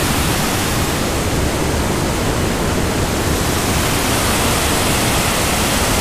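Waterfall: river water pouring over rock ledges in white water, a loud, steady rush.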